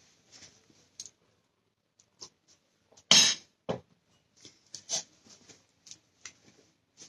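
Eating close to the microphone: scattered small mouth clicks and chewing smacks, with light clinks of a utensil on a bowl. One louder, short, noisy sound comes about three seconds in.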